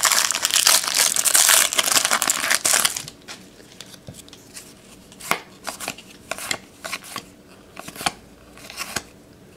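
A trading card pack's wrapper is torn open and crinkled loudly for about three seconds. Then the cards are handled and flicked through, giving scattered soft clicks and snaps.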